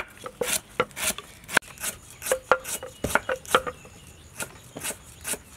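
Irregular sharp wooden knocks and taps, roughly two a second, some ringing briefly: a wooden pestle striking inside a wooden mortar and a knife chopping on a wooden cutting board.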